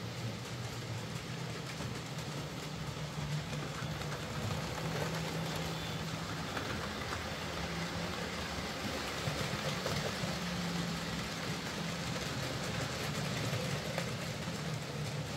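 Hornby J15 OO gauge model steam locomotive running on track with a newly fitted replacement electric motor: a steady motor-and-gear hum with the wheels rolling on the rails, fairly quiet and smooth.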